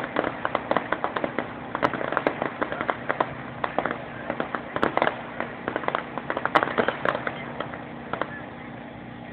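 Crackling firework stars going off in rapid, irregular sharp pops, a dense sputtering of cracks that thins out and stops about eight seconds in.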